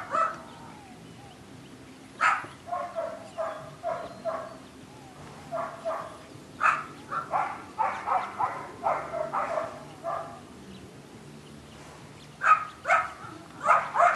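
Belgian Malinois puppy barking in runs of several sharp barks, with pauses of a second or two between runs.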